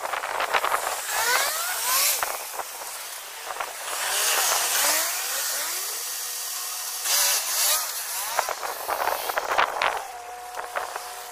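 Street ambience with road traffic: the hiss of passing vehicles swells and fades a few times.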